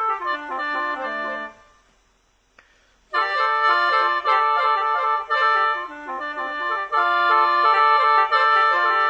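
Khaen, the bamboo free-reed mouth organ, playing a melody over held drone notes. It stops about a second and a half in and starts again about three seconds in.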